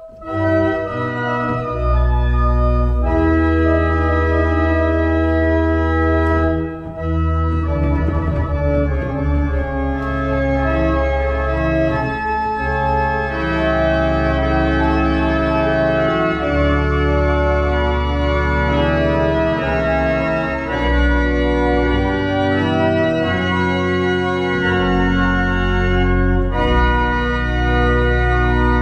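Wegenstein church pipe organ playing loud, sustained full chords over long, deep pedal bass notes, coming in strongly right at the start.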